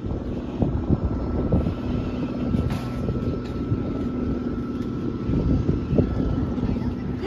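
Floatplane propeller engine running steadily, a constant droning hum.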